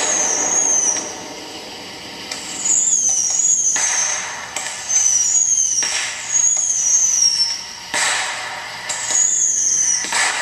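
Fireworks going off: several sharp bangs, with repeated high-pitched whistles that waver and fall in pitch between them.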